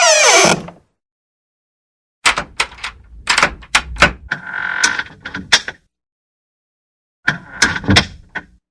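A door's hinge squeal falls in pitch and dies away at the start. After a silent gap, the door clacks and knocks in a quick run of sharp hits with a brief squeak in the middle. After another gap comes a second burst of clacks and a short squeak near the end.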